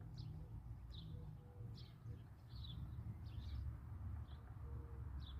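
Small bird chirping, a run of short, high, quick downward notes repeated about once or twice a second, faint against a low rumble of wind.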